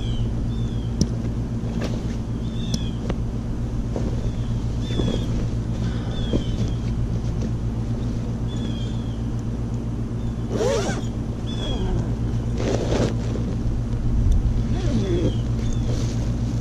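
Canvas tent bag being handled and opened, with fabric rustling and scraping that grows louder about two thirds of the way in. Under it runs a steady low machine hum, and a small bird gives a short falling chirp about once a second.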